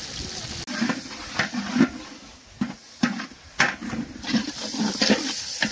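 Water poured into a large metal pot of frying onions and tomatoes, hissing briefly, followed by irregular scrapes and knocks of a metal ladle against the pot as it is stirred.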